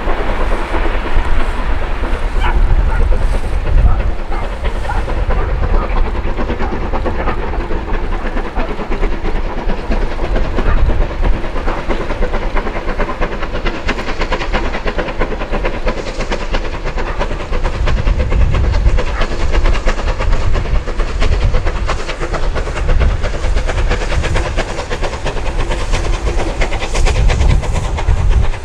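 Steam locomotive working hard as it hauls a passenger train up the line and past, its exhaust beating steadily with hissing steam and the clatter of coach wheels on the rails.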